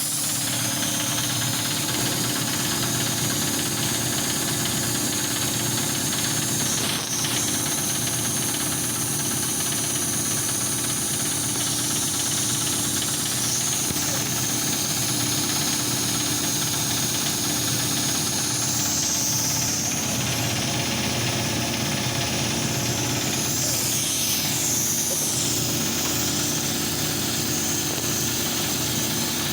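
Machinery running steadily: a constant hum with a steady high whine over it.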